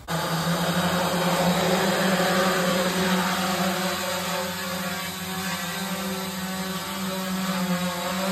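Home-built quadcopter's four motors and propellers humming in flight, a steady pitched buzz with slight wavering as the flight controller holds it in a hover.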